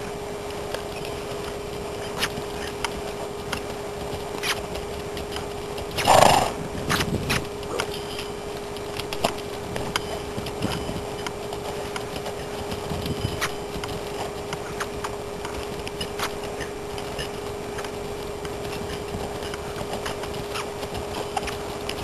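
Morgan mare's hooves beating on the dirt of a round pen as she canters loose, with one loud outburst from the horse about six seconds in. A steady hum runs underneath.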